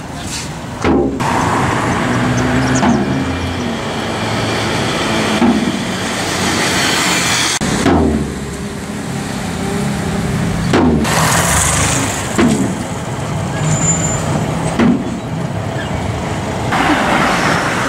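Street traffic: motor vehicles, among them a motorcycle, running past, with several sudden knocks spread through.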